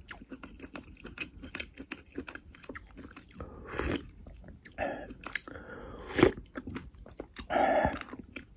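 A person eating close to the microphone: chewing and biting with many small wet mouth clicks, and a few louder mouthfuls.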